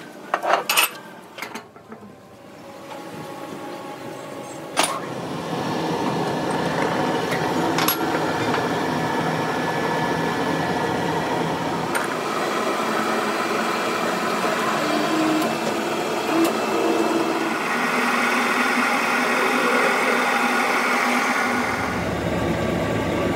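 Machinery running steadily in a workshop, building up over the first few seconds and then holding level. A few sharp metal clinks and knocks come near the start.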